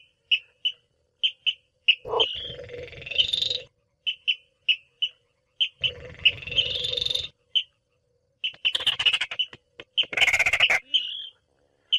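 Recorded call of a Baillon's crake, used as a hunting lure: short sharp notes repeated at uneven gaps, broken four times by longer rattling trills of about a second each.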